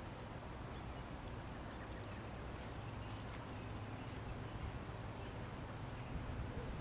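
Outdoor pond-side ambience: a steady low rumble under an even hiss, with a bird giving a short rising chirp about half a second in and again about four seconds in.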